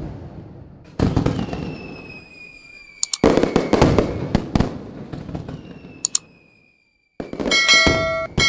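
Fireworks sound effect: three bangs with crackling, each followed by a whistle sliding slowly down in pitch. Near the end a bright bell-like chime rings out.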